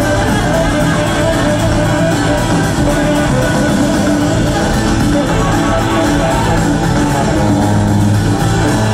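Live rock band playing with electric guitar and drums, heard from the audience seats of a theatre. The music is loud and runs on steadily.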